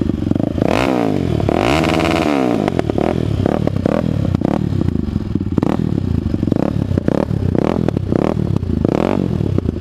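Honda TRX450R quad's single-cylinder four-stroke engine, fitted with a Monster Quad full aftermarket exhaust and just started, being revved loudly in throttle blips: a longer rev about two seconds in, then shorter blips.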